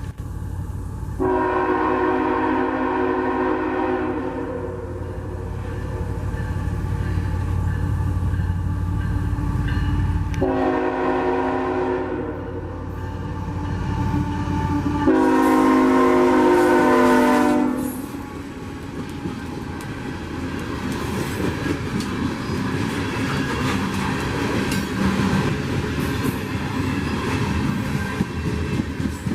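Diesel freight locomotive's air horn: a long blast of about nine seconds, a short one, then a louder closing blast of about three seconds over the rumble of the engine. After the horn, the train's cars roll by with a steady rumble and wheel clatter.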